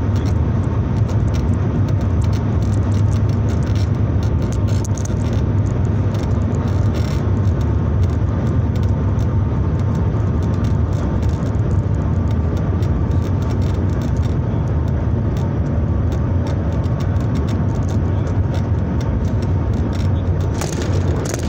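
Steady loud rumble and rushing air noise inside the Shanghai Maglev train's passenger cabin while it travels at high speed.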